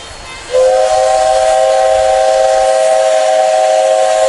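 Steam locomotive whistle giving one long, loud blast that starts about half a second in, with steam hissing behind it: a departure whistle as the train prepares to pull out.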